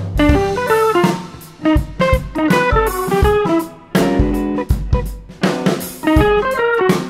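Background music: plucked guitar notes over a drum kit beat.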